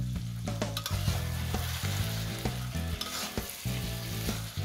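Shrimp and bamboo shoots sizzling in a steel wok as a metal spatula stirs and scrapes them around the pan, with repeated short scrapes and knocks. A low steady hum runs underneath.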